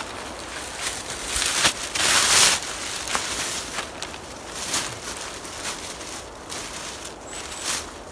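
Black plastic garbage bags rustling and crinkling as they are shaken out and handled, in irregular swells, the loudest about two seconds in.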